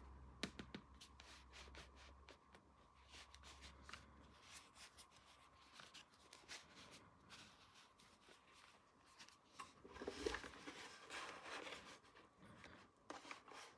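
Faint handling of small plastic toy pieces: scattered light clicks, then a busier patch of soft rustling and clicking about ten seconds in.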